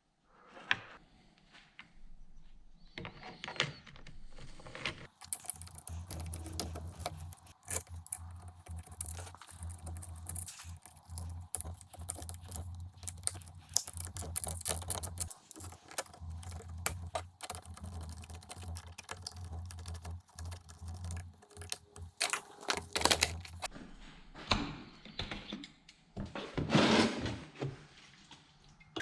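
Irregular light clicking and tapping of small parts and tools being handled during work on a chainsaw, over a steady low hum that starts about five seconds in and stops a few seconds before the end, with a louder clatter near the end.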